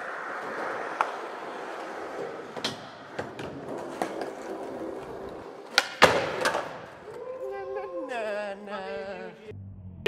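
Skateboard rolling on a smooth concrete floor, with several sharp clacks of the board and a loud impact about six seconds in as it goes onto a ledge. A pitched, wavering sound follows, dropping in pitch, until shortly before the end.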